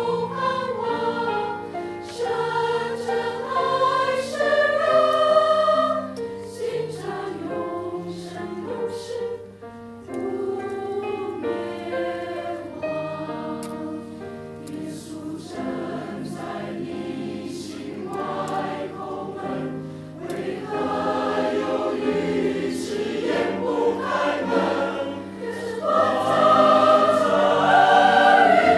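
Mixed choir of men's and women's voices singing a Chinese sacred chorus in harmony, swelling louder about three seconds before the end.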